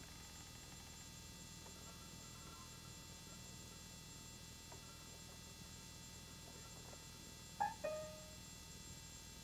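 Steady low electrical hum with hiss, and a short, sudden two-part sound about three-quarters of the way through.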